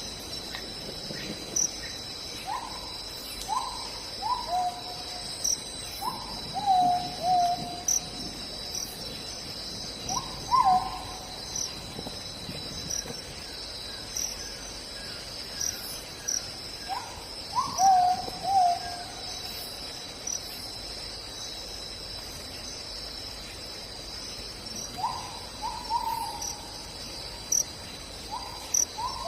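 Forest ambience: insects trill steadily and high throughout, while a bird gives short falling hoot-like calls in clusters of two or three, every few seconds.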